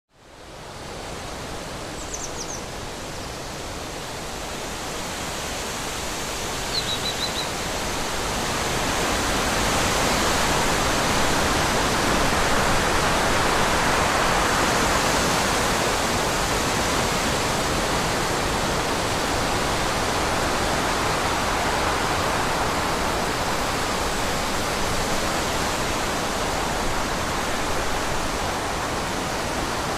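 Forest wind ambience: wind blowing through trees as a steady rushing noise that swells from about eight seconds in and then holds. Two short bird chirps sound in the first several seconds.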